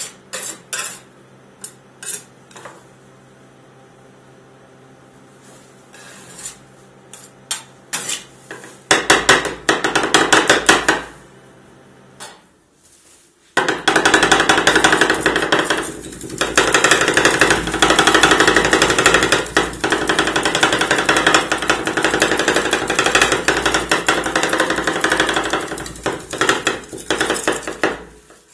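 Two flat metal scrapers chopping and tapping on the steel cold plate of a rolled ice cream machine, mashing apple into the ice cream base. Scattered taps at first, then fast, continuous metallic clatter, broken by a short pause a little before halfway.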